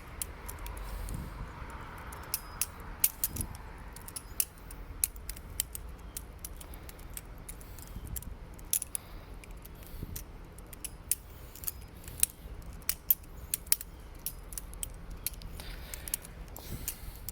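Squid Industries Mako V1 balisong trainer being flipped: irregular sharp metallic clicks and clacks as the handles swing about the pivots and knock together, coming in quick clusters with short gaps.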